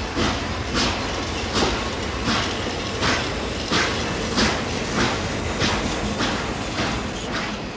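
Railway train running slowly: a steady rumble with the clack of its wheels over rail joints about every three-quarters of a second.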